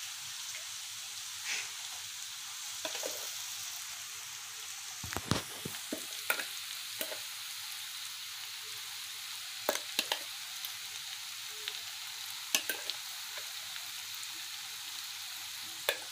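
Hot cooking oil in a kadai sizzling steadily as a freshly added wet red chilli paste fries in it with browned ginger-garlic paste. Scattered sharp pops and clicks break through the hiss, most of them in the second half.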